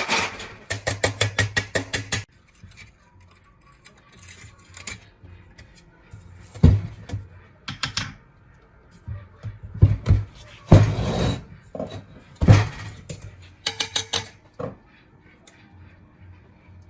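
Metal parts and tools clanking and knocking on a workbench: a quick run of about nine taps a second at the start, then separate clanks and knocks.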